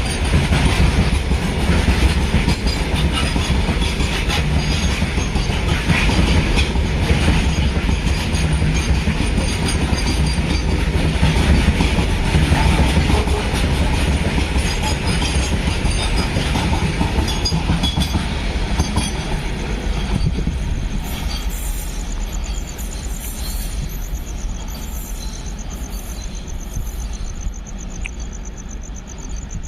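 Train rolling past close by: a steady rumble of wheels on the rails with scattered clicks from the rail joints, fading gradually over the last third.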